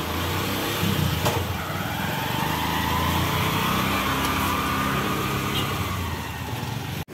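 Small motorcycle engine running as the bike rides off carrying two people, its pitch rising slowly as it gathers speed and easing off again later. A single click about a second in; the sound cuts off suddenly at the end.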